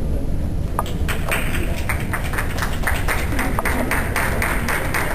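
Audience applauding, many hand claps starting about a second in and continuing, over a low rumble.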